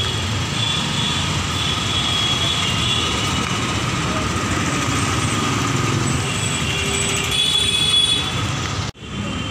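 Steady road traffic noise from passing cars and rickshaws on a busy street, with faint high tones over it and a brief sharp cut-out near the end.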